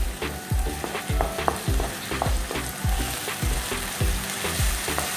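Spatula stirring ginger-garlic paste into onions, dried red chillies and curry leaves frying in oil in a non-stick pan. Regular scraping strokes about twice a second over a steady sizzle.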